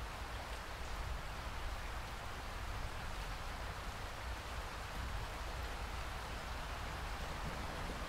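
Steady rain falling, an even, unbroken hiss over a low, steady rumble.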